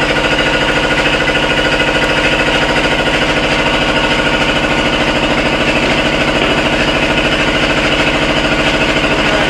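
An engine running steadily and loudly, with a fast, even knocking beat.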